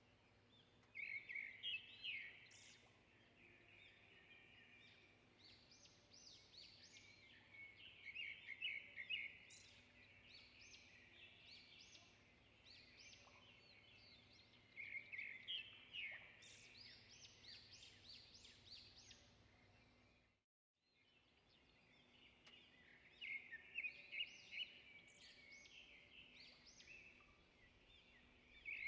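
Oil pastel scribbled on paper in quick bursts of short, scratchy strokes, with a faint steady hum underneath. The sound cuts out briefly about two-thirds of the way through.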